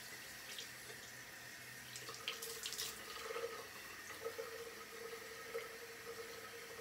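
Bathroom sink tap running steadily, with a faint steady tone under the flow and a few brief splashes a couple of seconds in, as hands wash a face in the water.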